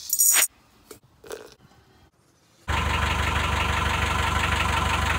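Instant coffee granules poured from a glass jar into a travel mug, a brief rattling rush, followed by near silence with a couple of faint taps. About two and a half seconds in, a narrowboat's engine cuts in, running steadily.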